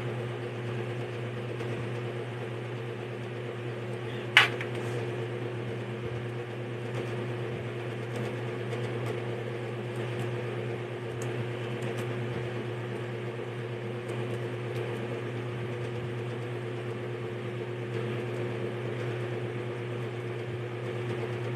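Steady mechanical hum of a running room appliance such as a fan, even throughout, with a single sharp click about four seconds in.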